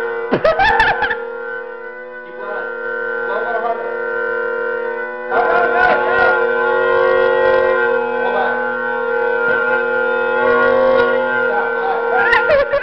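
Bagpipes sounding, the drones holding a steady chord under unsteady, wavering chanter squeals, blown by a beginner who cannot keep the bag pressure even. The sound sags about two seconds in and swells up again a few seconds later.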